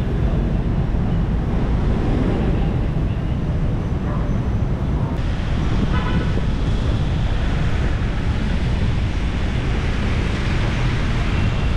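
City street traffic heard from a moving bicycle: steady engine and tyre noise of cars and motorbikes, with low wind rumble on the microphone. A short high-pitched sound comes about six seconds in.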